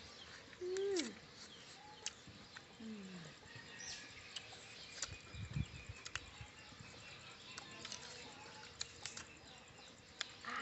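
People eating by hand, with scattered small clicks and smacks of chewing and handling sticky food, against an outdoor background with a few short falling animal calls, the loudest about a second in.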